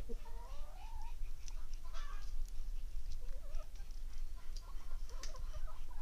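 Chickens clucking softly as they forage, with a few short rising calls in the first second and scattered clucks after, over a steady low rumble.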